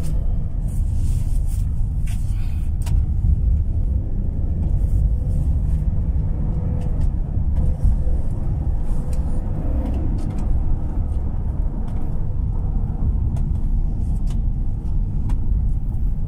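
Passenger van driving on the road, heard from inside the cabin: a steady low rumble of engine and road noise, with a few faint clicks.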